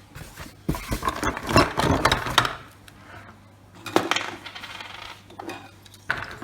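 Small hard plastic canister-filter fittings clattering and clicking as they are handled and set down: a dense run of clicks about a second in, another shorter run around four seconds, and a single knock near the end.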